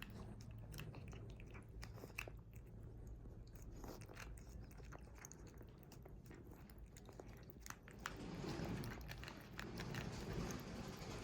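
A cat eating round dry kibble: faint, irregular crunches and clicks, growing busier and a little louder in the last few seconds.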